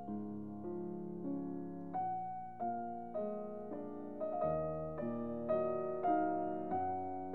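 Background piano music: a gentle melody of struck notes at an even pace, a new note or chord about every half second, each ringing on as it fades.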